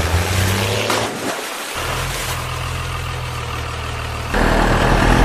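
Heavy truck engine sound effect idling steadily. It breaks off briefly a little over a second in, then comes back, and gets louder and rougher about four seconds in.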